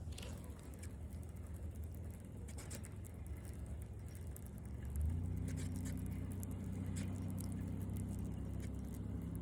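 A low, steady engine drone that becomes louder about five seconds in, with scattered light clicks and rustles over it.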